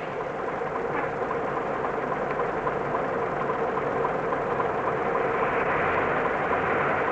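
Diesel bus engine running steadily, growing a little louder near the end.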